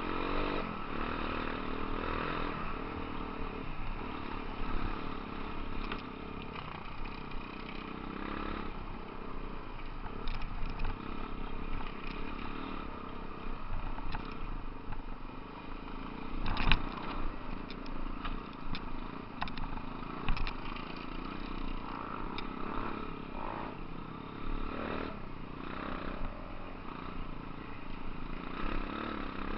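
Dirt-bike engine running continuously on a rough off-road trail, with clatter and several sharp knocks over the uneven ground; the loudest knock comes a little over halfway.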